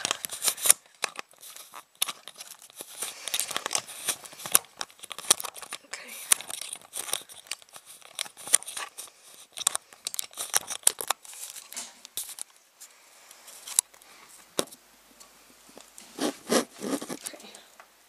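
Camera handling noise close to the microphone: irregular rustling, scraping and sharp clicks as the camera is unscrewed from its mount and moved by hand.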